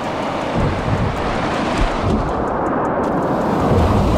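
Rushing whitewater splashing around a kayak running a rapid, loudest near the end as a wave breaks over the bow-mounted GoPro.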